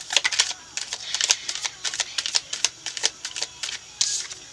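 Tarot cards being shuffled and handled by hand: a run of quick, irregular clicks and snaps.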